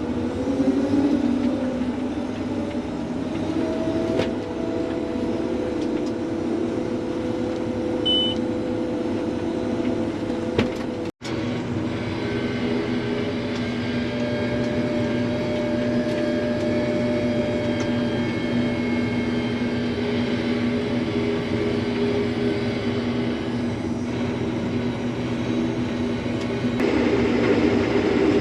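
Vehicle engine running steadily, rising in pitch just at the start. It breaks off abruptly about eleven seconds in, then a steady engine drone with a rattling clatter continues.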